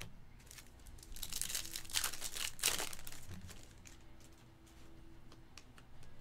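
Foil trading-card pack wrapper crinkling and tearing as it is opened, loudest between about one and three seconds in, followed by a few faint clicks.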